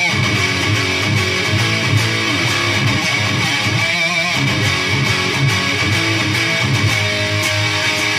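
Electric guitar played through a Peavey Triple XXX II tube amp head and 2x12 speaker cabinet: a distorted riff of repeated low notes, loud and continuous.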